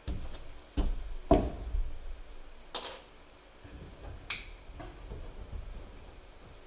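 A handful of knocks and clicks from handling screws and tools, with a short rattle near the middle and a sharp metallic clink a little later.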